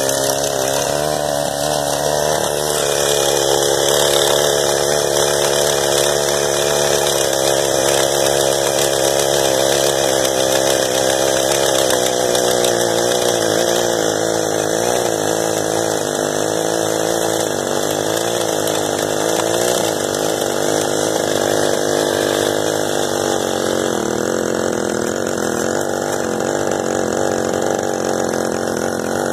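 Mini quad's small air-cooled single-cylinder engine running at idle, its speed wavering up and down a little while the carburetor is being adjusted.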